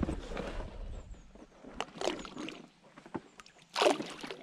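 Oars dipping and splashing in lake water as a small boat is rowed, about one stroke every two seconds, with light wooden knocks between strokes; the loudest splash comes near the end.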